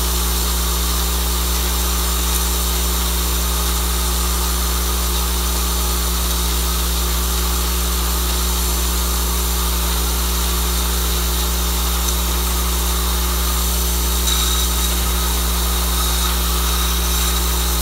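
Vibratory bowl feeder running a load of large-diameter tubes: a steady low electromagnetic hum with a constant hiss-like rattle of parts vibrating along the stainless-steel bowl track.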